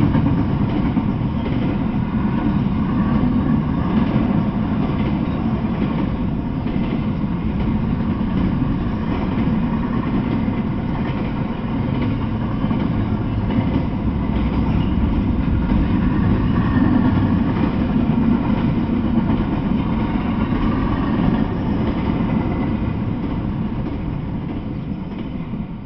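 Freight train of double-stack intermodal container cars rolling past: a steady low rumble that fades near the end as the last car goes by.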